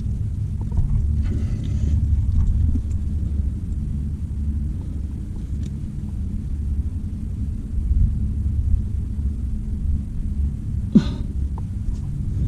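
Steady low rumble of wind buffeting a body-worn microphone while climbing in a rock chimney. A brief rustle comes about a second and a half in, and a short falling grunt from the climber about eleven seconds in.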